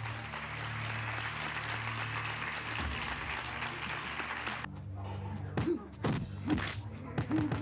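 A steady rush of crowd noise over a low music drone. It gives way, a little past halfway, to fight sound effects: short grunts and several sharp punch impacts.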